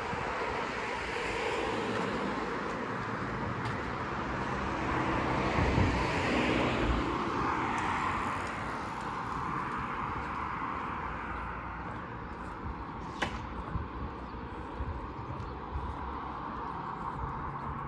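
Street ambience with a car driving past, swelling to its loudest about six seconds in and then fading into fainter traffic noise. A short sharp click comes later.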